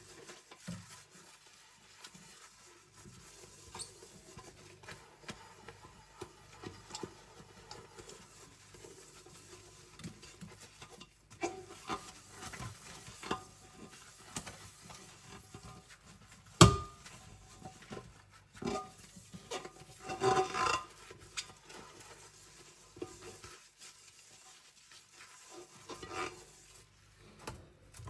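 Stainless steel stockpot being scrubbed by hand: repeated rubbing and scraping with small clinks, and one sharp knock about two-thirds of the way through.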